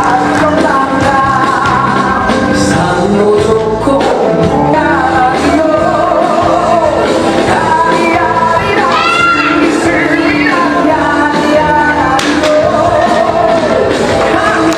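A song playing loudly: a singer's voice gliding over a steady instrumental backing.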